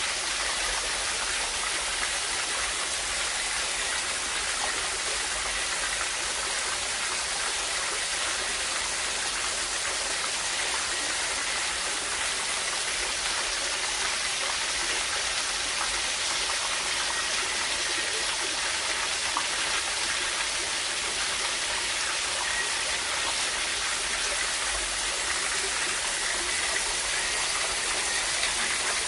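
Running water, such as a stream or cascade, making a steady, even rush that does not change.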